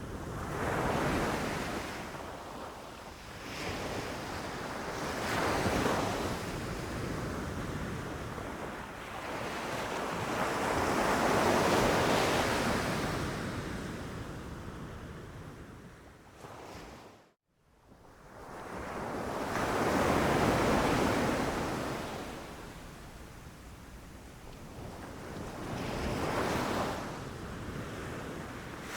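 Ocean surf: waves breaking and washing in, swelling and fading every few seconds. Just past the middle the sound cuts out briefly to silence, then returns.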